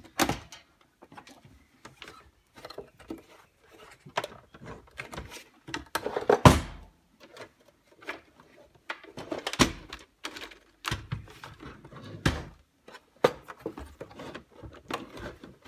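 Plastic housing of a Compaq SLT 386s/20 laptop clicking and knocking as it is handled and pushed to slide the chassis out: a string of irregular clicks and thuds, the loudest a thud about six seconds in.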